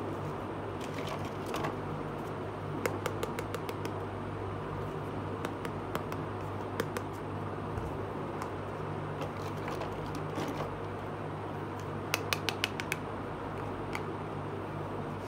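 Small hard plastic toy pieces clicking and tapping as they are handled and fitted together, with scattered single clicks and two quick runs of clicks, about three seconds in and about twelve seconds in, over a steady low hum.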